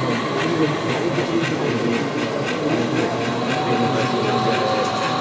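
HO scale model train of ore hopper cars rolling along the track, with light clicking of the wheels, over voices of people talking.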